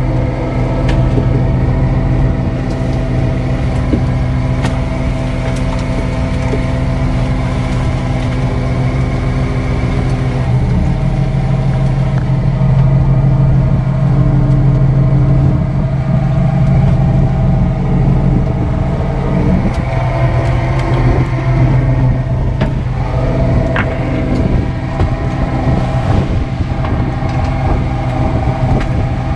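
Fishing boat's engine running steadily under way, its tone shifting about ten seconds in and again near twenty seconds, with a few faint clicks of gear on deck.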